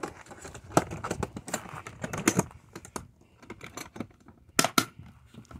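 Hard plastic clicks and knocks from a Bauer modular toolbox's lid and side latches being handled and snapped shut: an irregular scatter of small clicks, with two sharper snaps in quick succession near the end.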